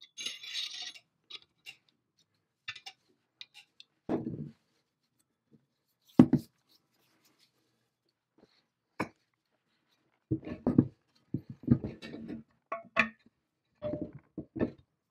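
Painted cast-iron parts of a swing saw being handled on a wooden workbench. A short scrape comes at the start, then scattered knocks and clunks, the loudest about six seconds in. A busy run of knocks and clunks follows in the last five seconds, as the swing arm is brought onto its pivot housing.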